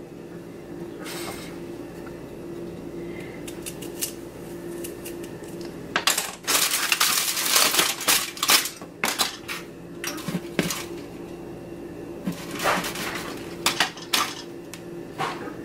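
Aluminum foil crinkling and rustling in bursts as a foil-wrapped eggplant is handled and turned, loudest about six seconds in and again near the end. A steady low hum runs underneath.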